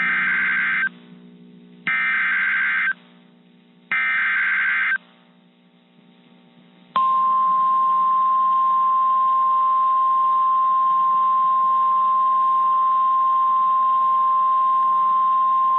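NOAA Weather Radio Emergency Alert System signal announcing a severe thunderstorm warning. Three short bursts of shrill SAME data-header tones about a second apart come first. After about two seconds of quiet, the steady single-pitch 1050 Hz warning alarm tone sounds and holds for about nine seconds.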